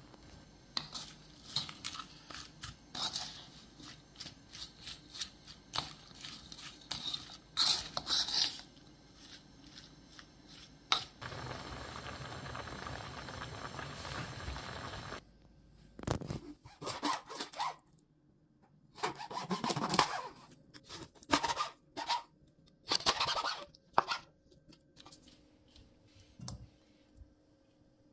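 Kitchen cooking sounds: a wooden spoon scraping and clicking in a bowl as seasonings are mixed, then a few seconds of steady bubbling from a pot of radish at a rolling boil, then scattered handling knocks and rustles as fish pieces are laid into the pot.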